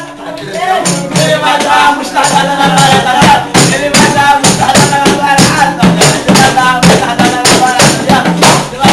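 A small group playing music live: a fast, steady beat of percussion hits with a melody over it.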